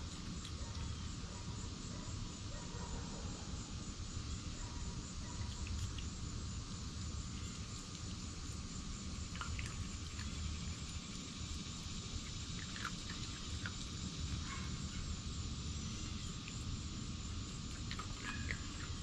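Steady chorus of crickets over a low steady rumble, with a few scattered small clicks and crunches as the red fox eats from glass bowls, a cluster of them near the end.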